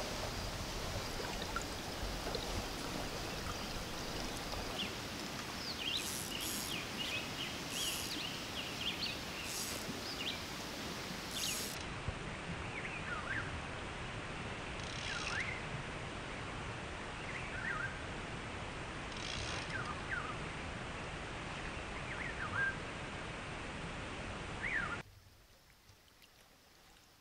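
Steady rush of a flowing trout stream, with songbirds chirping on and off over it. About 25 seconds in, the water sound drops abruptly to a much fainter hiss.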